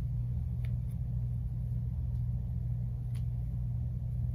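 Steady low background hum with no change, and a couple of faint clicks.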